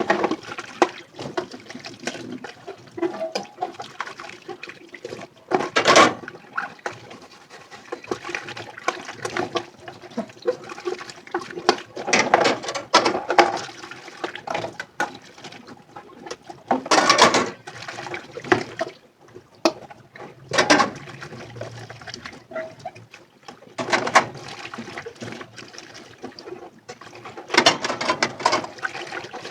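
Dishes being washed by hand in a sink: water running and splashing in uneven surges, with a few sharp clinks of crockery.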